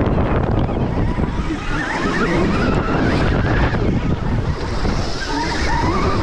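Electric dirt bike running at race pace: a high motor whine that rises and falls, climbing in pitch about two seconds in and again near the end, under heavy wind noise on the microphone.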